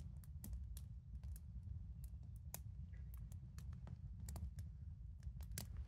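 Campfire of split firewood logs crackling: irregular sharp snaps and pops, several a second, over a low steady rumble.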